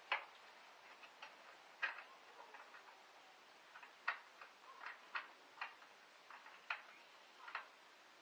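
Faint scattered clicks and taps, about a dozen at irregular intervals, from hand work in a car's engine bay: a tool and parts being handled.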